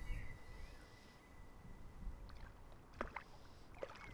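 Hooked wild brown trout thrashing and splashing at the water's surface while being played on a fly rod, a few sharp splashes about three seconds in and near the end.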